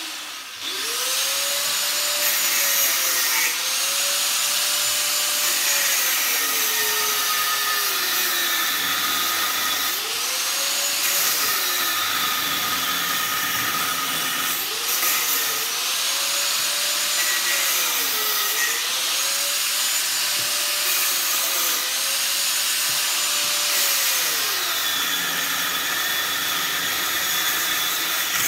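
Corded angle grinder running continuously, grinding through the welds on a transformer's steel lamination stack. Its motor whine sags in pitch several times as the disc bites into the steel and climbs back as it frees up, over a steady grinding hiss.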